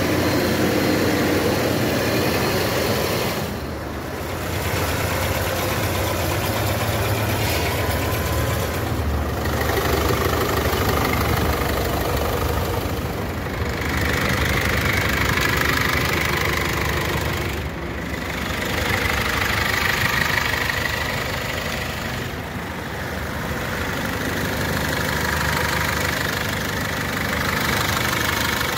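Car petrol engines idling, heard close up in the open engine bays, a steady running sound whose level dips briefly every four to five seconds.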